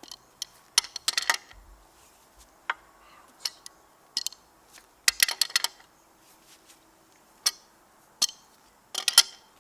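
Sharp metallic clinks and knocks of hand tools on the anchor's galvanized bolts and lock nuts as they are fastened, coming in short clusters about a second in, about five seconds in and near the end, with single clicks between.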